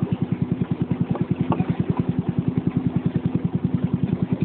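Small boat engine running steadily with an even, low pulsing beat of about eight or nine beats a second.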